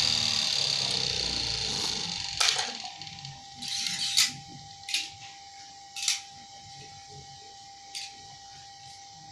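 Electric fabric-cutting machine's motor running, fading and dropping off about two and a half seconds in, followed by a handful of sharp clicks and swishes.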